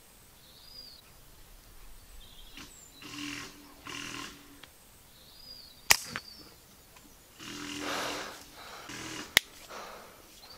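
Air rifle shot: one sharp, loud crack about six seconds in, a quieter crack a moment later, then another sharp click about three and a half seconds after that. The shot brings down a jackdaw.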